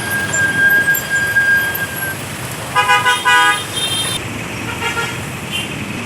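Road traffic noise with a vehicle horn sounding two short blasts close together about three seconds in, followed by a fainter horn toot a couple of seconds later.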